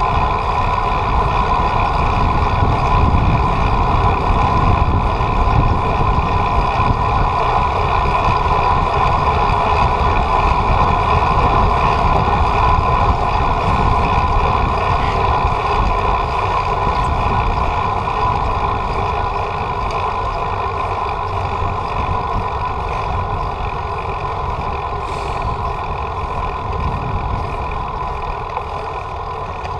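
Wind rumbling on the microphone and steady road noise during a bicycle ride, with a constant whine running through it. The sound eases slightly in the last third.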